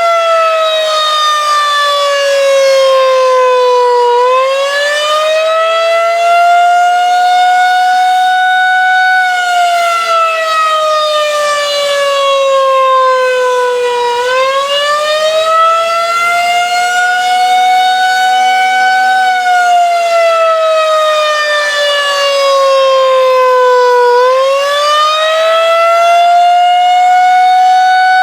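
Federal Signal 2001-130 electromechanical outdoor warning siren sounding its attack signal: a loud wail that falls in pitch over about four seconds, then climbs back over about five and holds briefly, repeating about every ten seconds.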